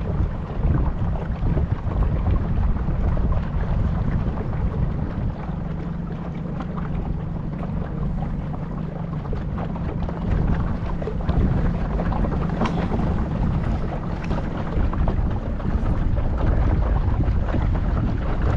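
Small motor boat under way: a steady low motor hum, with wind buffeting the microphone.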